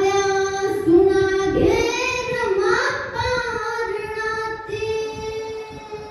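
A girl singing solo, holding long notes that slide from one pitch to the next; the last note fades away near the end.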